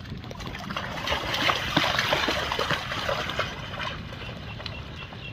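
Water splashing and trickling, with scattered small splashes. It grows louder for about two seconds in the middle.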